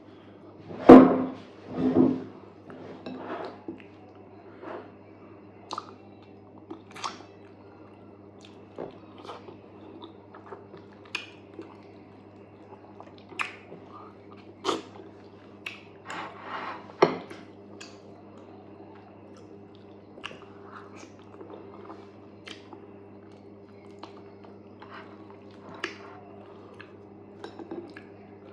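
Close-miked eating of fufu and okra soup: wet chewing and mouth smacks with scattered small clicks of dishes, the loudest two about a second apart near the start, over a steady low hum.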